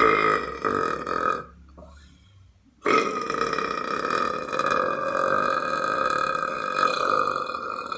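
A person burping: one belch that stops about a second and a half in, then after a short pause a long, drawn-out belch held at a steady pitch for over five seconds.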